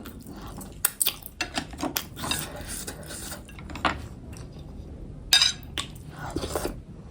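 Cutlery clicking and scraping against dishes in a run of short, irregular clinks, with the sharpest clink about five and a half seconds in.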